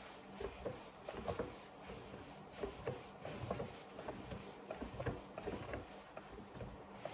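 Soft dough being kneaded and shaped into a ball by hand on a floured wooden board: faint, irregular soft knocks and rubbing.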